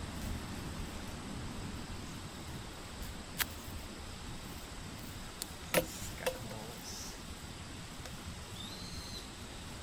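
Steady outdoor background broken by three sharp clicks, the loudest about six seconds in, with a faint bird chirp near the end.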